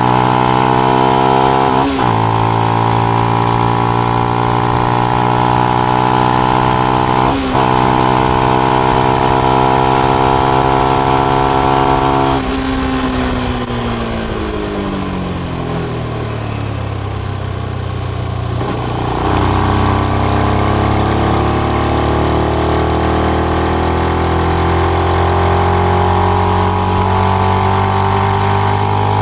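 Benelli BN125 single-cylinder engine running through its stock exhaust with the dB killer fitted, held at steady revs with two brief dips early on. The revs then fall for several seconds as it slows and climb again steadily from about two-thirds of the way through.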